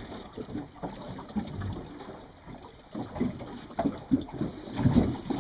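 Wind on the microphone and water slapping against a small boat's hull, with irregular low knocks and rustles of handling on deck.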